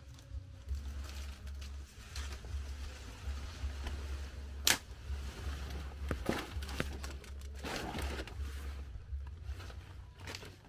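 A large banana leaf rustling and crackling as it is picked up and handled. A single sharp crack comes a little under halfway through, and a longer rustle follows about three quarters of the way in.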